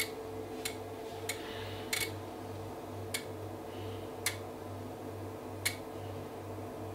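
Relays on the Keysight DAQ970A's DAQM901A armature multiplexer card clicking about six times at uneven intervals as the scan steps from channel to channel, over a low steady hum.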